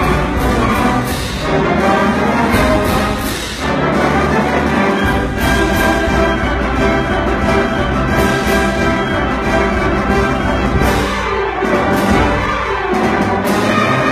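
Concert band playing, brass to the fore, in full held chords that change every few seconds.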